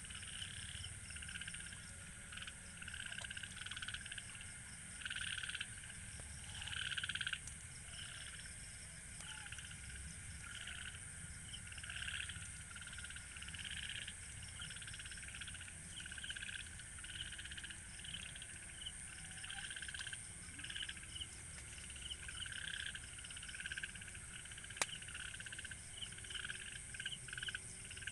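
Chorus of frogs croaking: overlapping bursts of rapid pulsed calls that rise and fall in loudness, over a steady high-pitched drone. A single sharp click sounds near the end.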